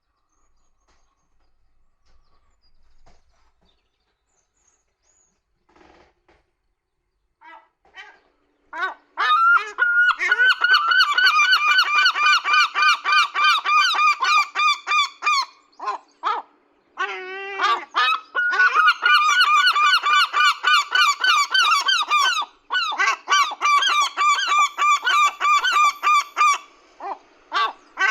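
Gulls calling loudly in a long run of rapid, repeated harsh cries. The calling starts about nine seconds in after a few faint scattered calls, and breaks off briefly twice.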